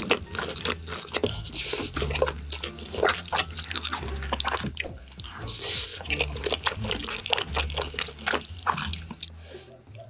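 Close-miked ASMR eating sounds: wet chewing and squishing of a big mouthful of cheese-covered cream tteokbokki, the chewy rice cakes giving many small, irregular, sticky mouth clicks.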